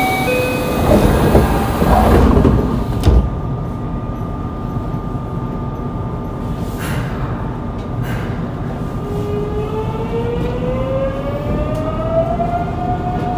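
Yokohama Blue Line 3000A subway train with Mitsubishi GTO-VVVF inverter drive: a few short chime tones and a thud about three seconds in as the doors close, then the inverter whine rising steadily in pitch from about nine seconds as the train starts to pull away, levelling off near the end.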